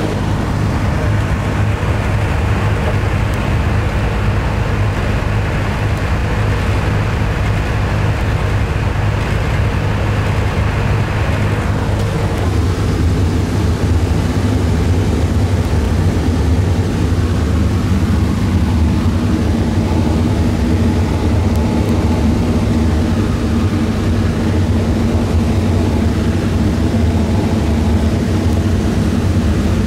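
The four nine-cylinder Wright R-1820 Cyclone radial engines of a B-17 Flying Fortress droning steadily in cruising flight, heard inside the fuselage. About twelve seconds in the sound changes abruptly, with less hiss and a deeper tone.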